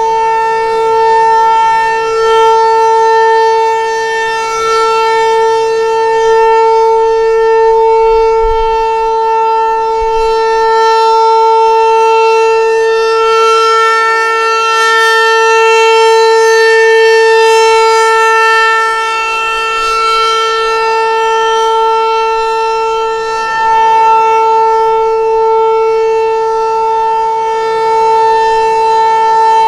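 Federal Signal 508 rotating outdoor warning siren sounding the steady Alert signal: one loud, unwavering tone that swells and fades slightly every few seconds as the siren head turns.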